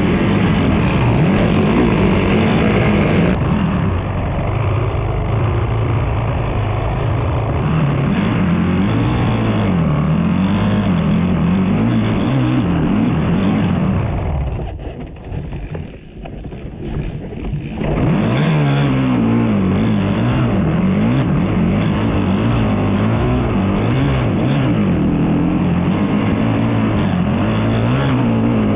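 Racing ATV engines revving, the pitch rising and falling over and over as the throttle is opened and closed. The sound drops away for a few seconds about halfway through, then comes back.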